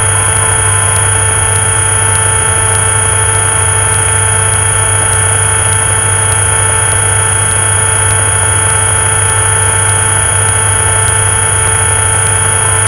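Cessna 172's piston engine running steadily at low taxi power, heard inside the cabin as a constant drone with a hum.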